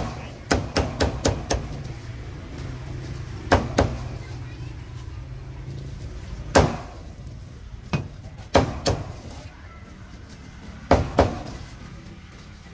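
Meat cleaver chopping roasted duck on a round wooden chopping block: sharp chops in uneven bunches, a quick run of five at the start, then single or paired chops every couple of seconds.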